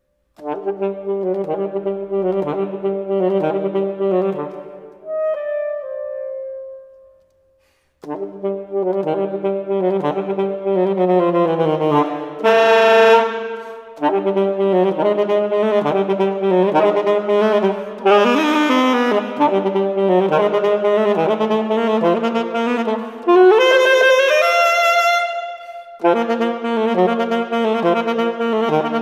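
Alto saxophone played solo, without accompaniment: a single melodic line in phrases broken by short breaths. A held note fades out about six seconds in, followed by a second of near silence, and a quick rising run comes about twenty-four seconds in.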